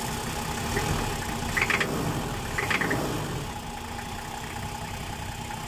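Nissan Safari six-cylinder diesel engine idling with its fuel injector pipes fitted in the wrong firing order. Two brief higher-pitched rattles stand out about one and a half and two and a half seconds in.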